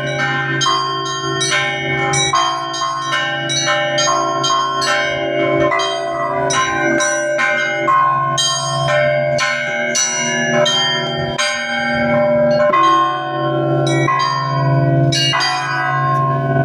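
Russian Orthodox church bells being rung: quick strikes of the smaller, higher bells, several a second, over the long ringing hum of a large low bell.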